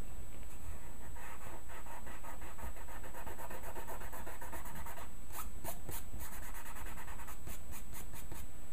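A hand rubbing and brushing across paper: soft scratchy rubbing at first, then a quick run of short scraping strokes in the second half.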